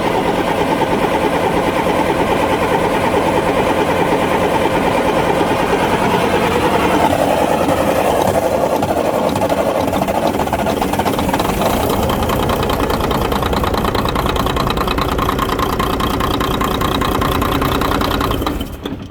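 Volvo FH12 truck's 12-litre inline-six diesel running steadily just after its first start following a rebuild, then dying out suddenly near the end: it stalled by itself rather than being switched off. The engine runs on fewer than all cylinders, which diagnosis traced to a third injector giving no mechanical response.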